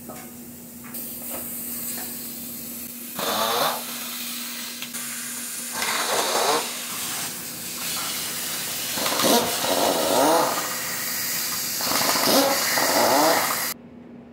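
Pneumatic impact wrench loosening valve-cover bolts: a steady hiss of escaping air with about four louder hammering bursts. It cuts off abruptly near the end.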